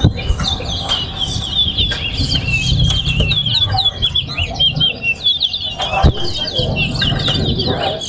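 Caged towa towa (chestnut-bellied seed finch) singing a long, fast run of chirping notes, a competition song that the judges count. A sharp knock sounds about six seconds in.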